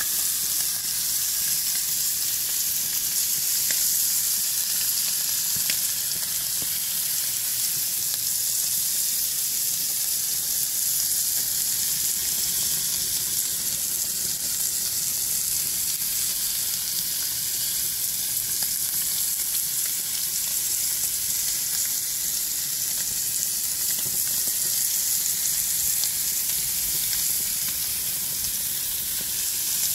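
T-bone steaks sizzling on a hot ridged grill pan on a barbecue: a steady, high hiss of fat and juices frying.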